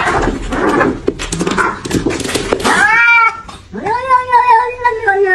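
Two domestic cats fighting: a noisy scuffle with hissing for about three seconds, then a short yowl and a long, drawn-out yowl, falling slightly in pitch, as they face each other off.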